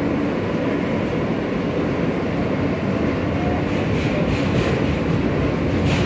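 R143 subway car running, heard from inside the car: a steady rumble of wheels on rail, with a faint rising whine about halfway through and a few clicks in the second half.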